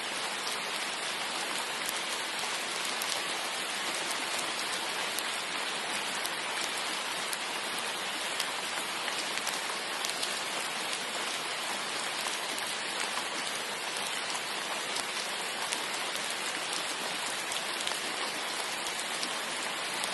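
Steady rain falling, an even hiss with fine scattered drop ticks.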